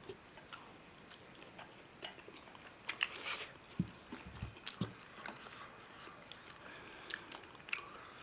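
Close-miked chewing and eating: many small wet clicks and smacks of food in the mouth, with a few dull knocks about four to five seconds in.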